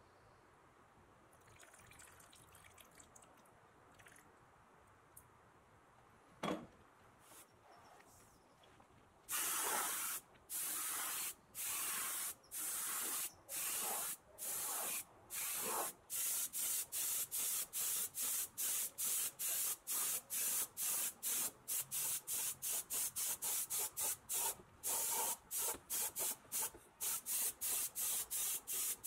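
Gravity-feed paint spray gun hissing in short trigger bursts as it sprays paint. The bursts start about a third of the way in, coming about once a second at first, then speed up to several quick bursts a second.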